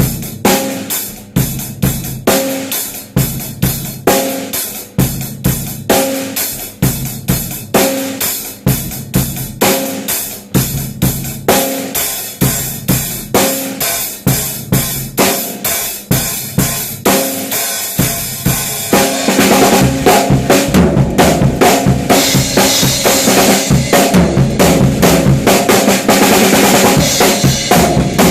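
Drum kit playing a steady beat of kick, snare and cymbal hits. About two-thirds of the way through it gets louder and busier, with a thick wash of cymbals.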